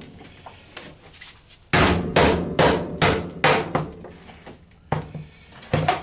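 Hammer striking the metal case of a computer power supply to force it open: a run of five quick blows, about two and a half a second, starting about two seconds in, then two lighter knocks near the end.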